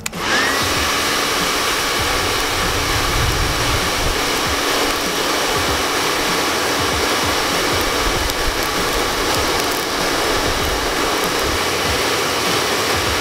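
Hair dryer switched on, its motor whining up to speed within about half a second, then running steadily, blowing a forced-air blast through a pipe into the burning charcoal of a homemade forge.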